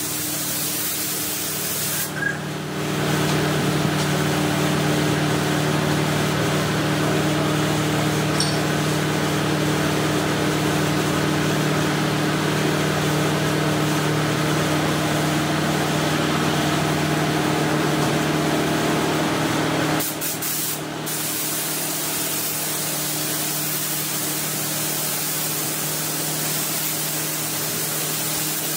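Compressed-air paint spray gun hissing steadily while applying automotive colour coat, over a steady hum. The sound swells about two seconds in and drops back abruptly about two-thirds of the way through.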